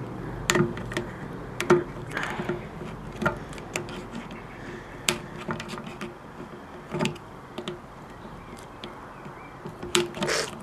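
Multi-tool can opener levering its way around the rim of a tin can: irregular sharp metallic clicks and scrapes, roughly one a second, some leaving a short ringing note from the can. Near the end, a person sneezes once, from hay fever.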